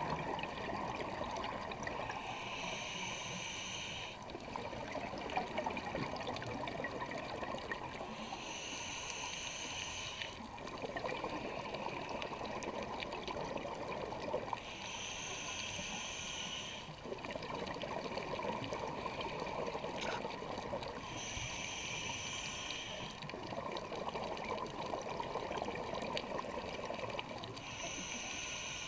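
Scuba diver breathing through a regulator underwater, in a slow regular cycle: a hiss of about two seconds returns roughly every six seconds, with bubbling between.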